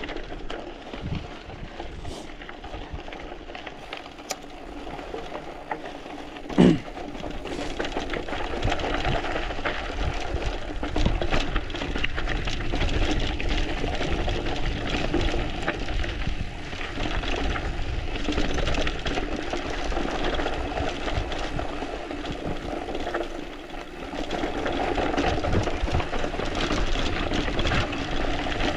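Mountain bike tyres rolling and crunching over a loose, dry dirt trail, with frequent small clicks and knocks from the bike over bumps and a single loud clunk about six and a half seconds in. The rolling noise grows louder from about eight seconds in.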